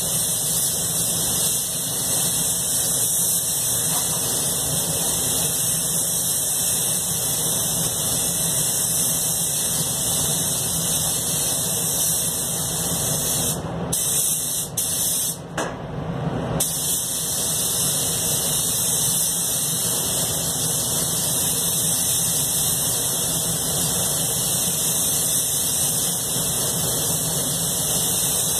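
Anest Iwata Classic Plus gravity-feed spray gun hissing steadily as compressed air atomises paint onto a car panel. Partway through, the hiss cuts out briefly a few times.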